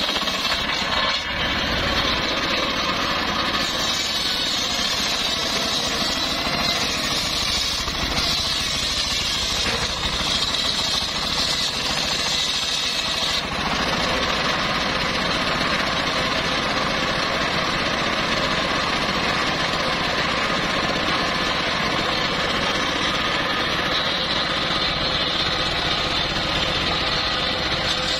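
Homemade engine-driven circular saw bench ripping a teak log lengthwise: the large blade cutting through the wood over the steady running of its engine. The sound changes in tone about halfway through.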